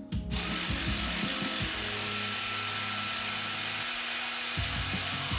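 A power tool running steadily with an even, high hiss while backing out the last bolt holding the transmission, over background music. It starts abruptly just after the start.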